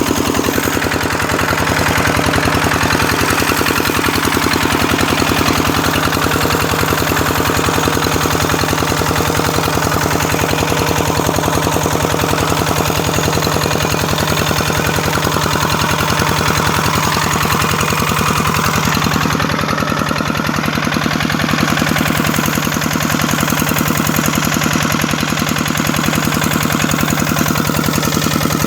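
Kubota engine driving a water pump, running steadily with a fast, even pulsing beat.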